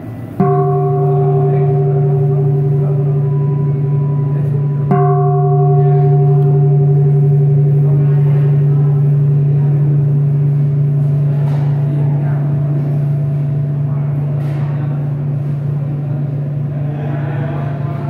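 Large hammered-metal temple bowl bell struck twice, about half a second in and again about five seconds in. Each strike rings on in a deep, long-sustained hum with several higher tones above it, fading only slowly.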